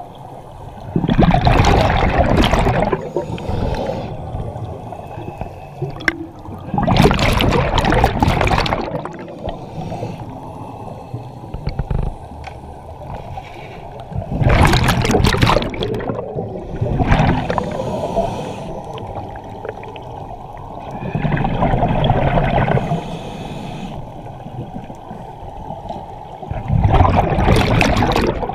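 Scuba regulator breathing heard underwater: a rush of exhaled bubbles gurgling past about every five to six seconds, with quieter stretches between breaths.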